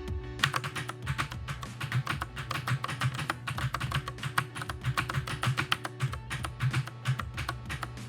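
Fast typing on a Sades Dragonwolf mechanical keyboard with Cherry MX Blue switches: a rapid, irregular run of clicky keystrokes starting about half a second in, over background music.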